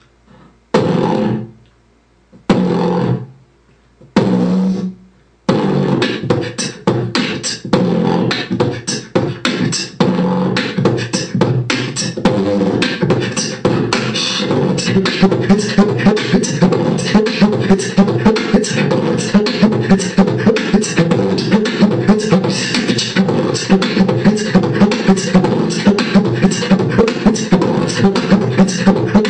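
Beatboxing: a voice-made drum beat. It opens with four separate vocal bursts about a second long, then from about five seconds in runs as an unbroken fast pattern of sharp clicks and deep kick-like hits, which grows steadier and more even after the halfway point.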